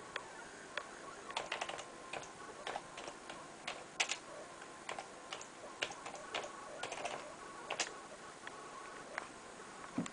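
Keys clicking on a computer keyboard, typed in short irregular runs as a username and password are entered at a login prompt.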